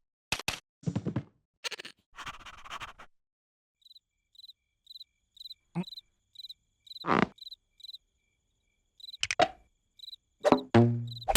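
Cartoon sound effects: several quick knocks and plops, and through the middle a cricket chirping steadily about twice a second. Near the end comes a short, low vocal sound.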